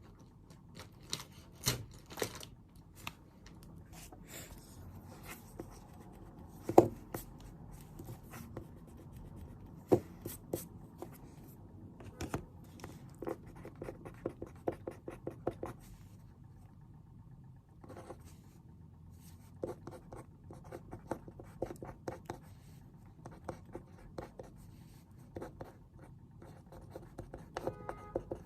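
Pen writing on paper at a desk: irregular small scratches and taps, with a sharper knock about seven seconds in and another near ten seconds.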